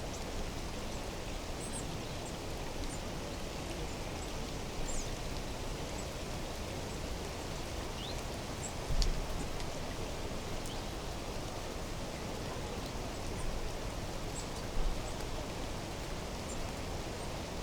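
Steady outdoor mountain ambience: an even hiss, with scattered faint high chirps of small birds and two brief low thumps, about halfway through and near the end.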